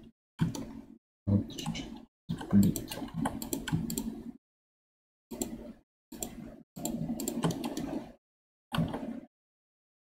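Computer keyboard keys and mouse clicks in seven short spells, each cutting off abruptly to dead silence.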